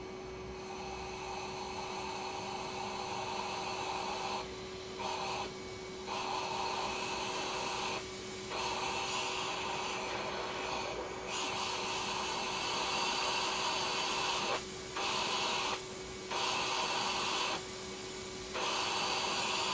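Vacuum cleaner motor running steadily, drawing air through a brass ball valve and copper pipe to test the airflow. The rush of air drops away briefly about seven times as the flow is cut off, while the motor hum carries on underneath.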